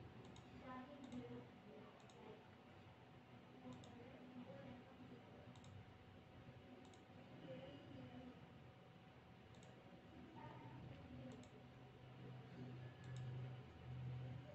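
Faint, separate clicks of a laptop's pointing-device button as on-screen settings are selected, about nine of them one to two seconds apart, over a low hum.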